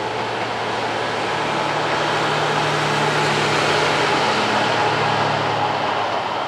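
Diesel train passing close by: a low, steady engine hum over a wash of running noise that swells to a peak and then begins to fade as it goes by.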